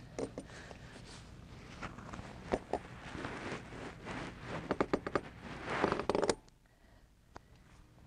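Steel truck tire chain being cinched tight with a cam-tightening tool: metal clinking and scraping of chain links and tool, in quick irregular clicks that grow busier and stop abruptly about six seconds in.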